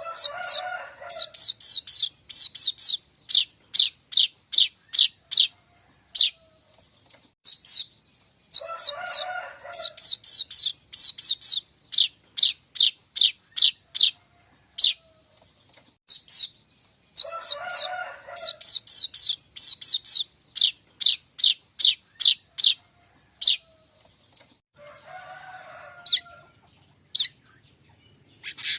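Manyar kembang (streaked weaver) song played as a lure: quick runs of high chirps, broken every eight or nine seconds by a lower, rasping note about a second long, the same pattern repeating as a loop.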